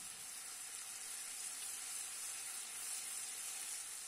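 Green peppers and whole cherry tomatoes frying in oil in a pan, giving a steady, quiet sizzle.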